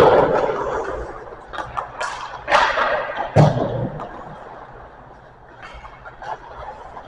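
Hockey sticks and pucks at stick-and-puck practice in an ice rink: sharp cracks of shots and puck hits that ring in the arena's echo, the loudest two about two and a half and three and a half seconds in, then lighter clicks.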